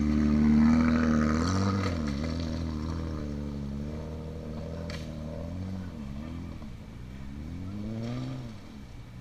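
BMW 325i's straight-six engine revving as the car accelerates up a rocky dirt trail, its pitch rising and falling several times as the throttle is worked. It is loudest just after the start and fades as the car pulls away.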